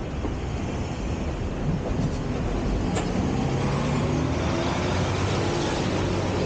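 City street traffic: car, bus and truck engines running over steady road noise, with a lower engine hum from a heavy vehicle coming in about two seconds in. A single sharp click sounds about three seconds in.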